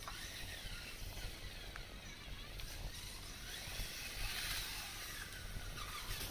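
Small electric motors of a radio-controlled model construction machine whining, rising and falling in pitch, over steady outdoor background noise, with a brighter high-pitched swell a little past the middle.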